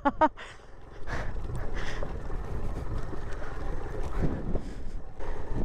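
Suzuki Van Van 125's small single-cylinder engine running at low speed as the bike rides over rough grass, with wind buffeting the microphone; it grows louder about a second in.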